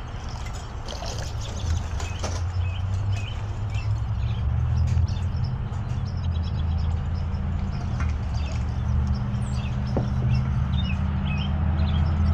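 A loud, steady low rumble, like a motor or engine running, that grows louder about two seconds in and again halfway through, with short high chirps scattered over it.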